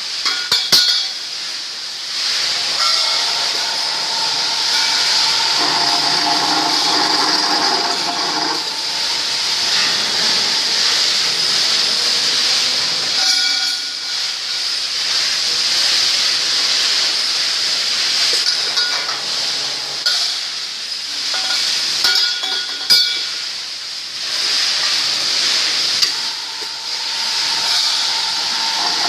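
Automatic pipe-cutting machine with a carbide circular saw blade running and cutting metal pipe: a steady high hiss and whine that swells and eases every several seconds, with a couple of sharp metal clinks, one near the start and one about two-thirds through.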